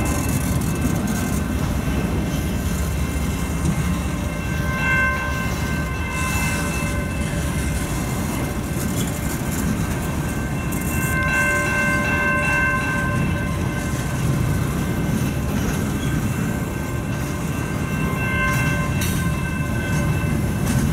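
Freight train cars rolling past a level crossing, a steady rumble of wheels on rail. A high pitched tone rises out of it and fades three times along the way.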